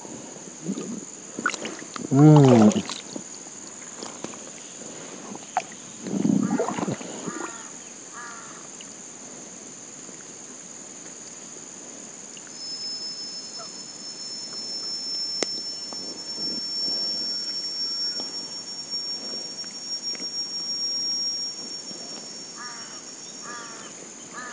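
Riverside ambience: a steady high insect drone throughout, two short loud voice-like calls early on, a long thin high tone through the middle, and crow caws near the end.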